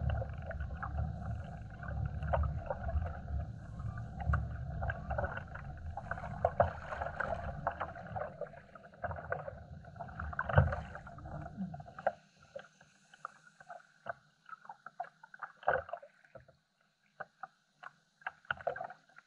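Low rumble of wind and water around a kayak at sea, with many irregular clicks and knocks on top. The rumble cuts out suddenly about twelve seconds in, leaving only sparse ticks.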